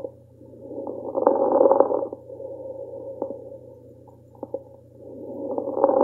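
Lung sounds through a stethoscope over the right lung base of a patient with interstitial lung disease: two breaths, the louder one about a second in and another near the end, with brief, discontinuous fine crackles clicking through the breathing. Fine crackles like these come from the sudden opening of collapsed small airways and are a sign of interstitial lung disease. A steady low hum runs underneath.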